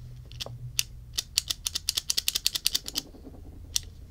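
Rapid metallic clicking of a vintage Ronson Triumph automatic lighter's mechanism being worked over and over with the thumb. There are a few clicks at first, then a quick run of about eight a second for nearly two seconds, then one last click near the end. This is the flint wheel grooving the flint.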